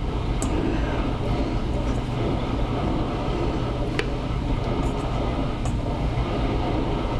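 A steady, low machine rumble with a few faint, sharp clicks, the clearest about four seconds in.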